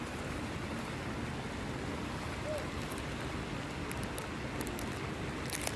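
Steady rushing of a waterfall, with a few faint sharp clicks near the end.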